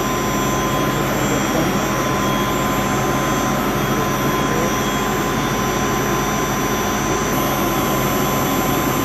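Steady drone of chilled water pumps and their electric motors running, a broad rushing hum with a thin steady whine over it.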